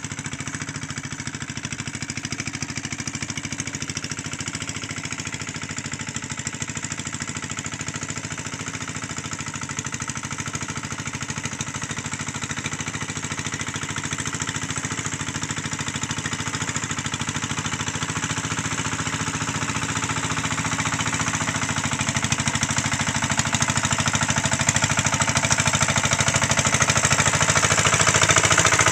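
Hand tractor's engine running steadily with a rapid, even pulse as it tills a flooded rice paddy. It grows louder as the machine comes closer.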